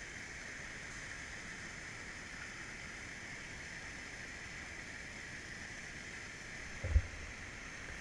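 Steady rush of water pouring over a river waterfall, with one brief low thump near the end.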